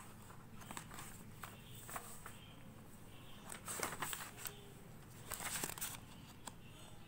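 Pages of a paper textbook being turned by hand: faint paper rustling and soft clicks, with two louder rustles a little past the middle.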